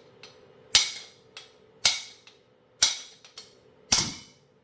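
Hammer blows knocking the old seal out of a power steering rack's housing cap: four sharp metal strikes about a second apart, each ringing briefly, with lighter taps between them.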